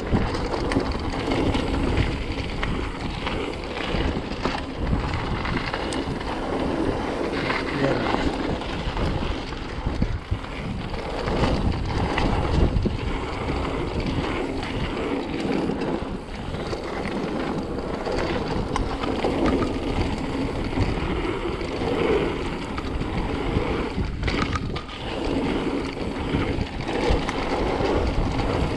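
Mountain bike riding down a dirt trail: tyres rolling and skidding on the ground, with the bike rattling and knocking over bumps and roots, and wind buffeting the microphone.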